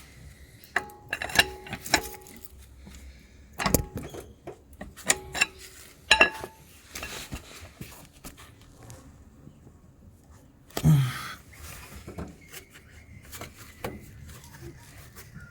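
Sharp metallic clinks and knocks of hand tools against the exhaust and its hanger while prying at a rear rubber exhaust mount, some with a short ring, with a heavy exhale of effort about eleven seconds in.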